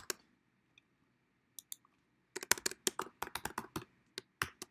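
Typing on a computer keyboard: a quick run of keystrokes about two seconds in, with a few isolated clicks before and after.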